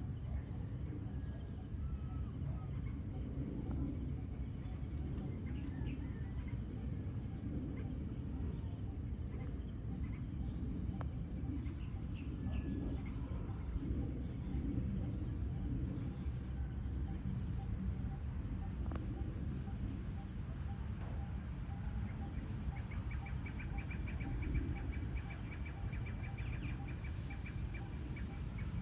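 Outdoor evening ambience: scattered short bird chirps over a steady low rumble. Past the middle a run of evenly spaced notes repeats, and about three quarters through a fast, high insect-like trill starts and carries on.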